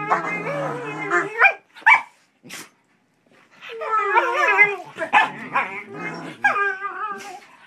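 Two dogs play-fighting, a pit bull puppy and a shepherd-type dog, making wavering, drawn-out grumbling and whining 'talking' noises mixed with a few short, sharp yips. They fall quiet for about a second partway through.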